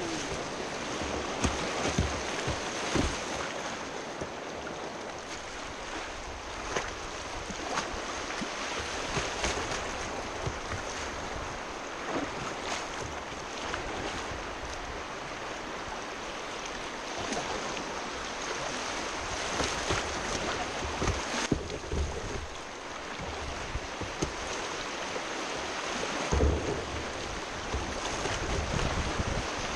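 River rapids rushing and splashing around a kayak's bow, with sharper splashes now and then and occasional low wind buffeting on the microphone.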